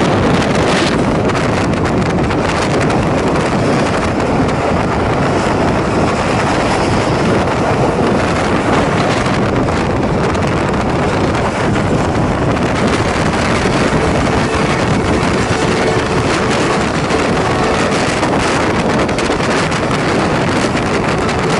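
Passenger train running at speed, heard through an open carriage window: a steady rumble of wheels on track, with wind buffeting the microphone.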